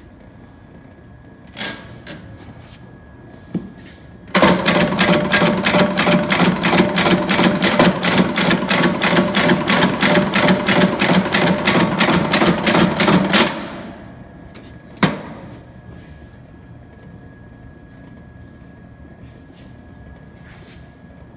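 Bostitch Auto Soler Continental 8 electric shoe nailer driving nails fed from its wire spool into a boot sole: a fast, steady run of sharp strokes, about five a second, lasting about nine seconds and then stopping abruptly. A couple of clicks come before it starts, and a single clank follows.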